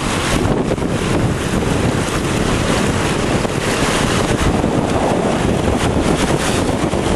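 Wind buffeting the microphone over surf washing against the shoreline rocks, a loud, steady rush of noise.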